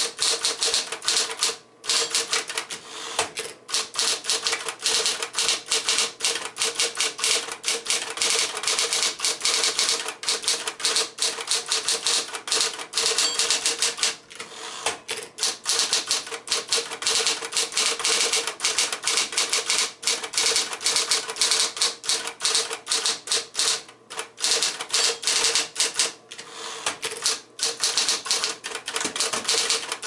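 A 1968 Sears Electric 12, a rebadged Smith-Corona electric typewriter, being typed on at a fast, steady pace: a dense run of sharp key and typebar strikes with a few brief pauses, over the steady hum of its running motor.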